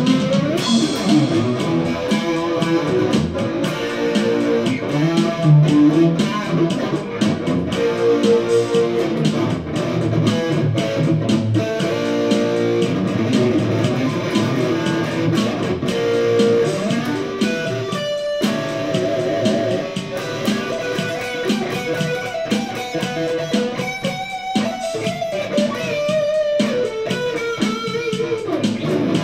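Electric guitar played through an amplifier, picking melodic lines and chords; in the second half several notes are bent and held with vibrato.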